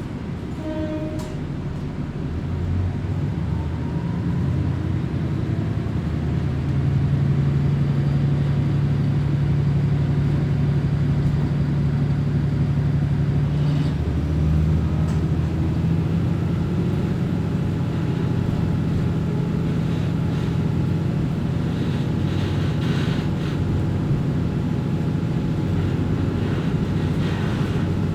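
Diesel railcar running, heard from inside the car: the engine's drone and the running noise grow louder over the first several seconds as the engine works harder. The engine note then changes about 14 seconds in and runs steadily on.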